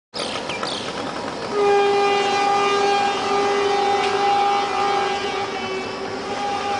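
Train horn sounding one long, steady blast that starts about a second and a half in, over the running noise of the train.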